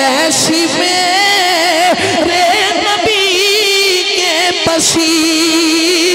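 A man singing a melodic, ornamented line into a microphone over a PA, with wavering, trilled notes. He holds one long steady note near the end.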